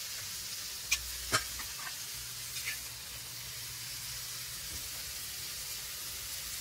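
Mixed vegetables and boiled potato with spices frying in a pan over low heat, with a steady soft sizzle. Two sharp clicks of a utensil against the pan come about a second in.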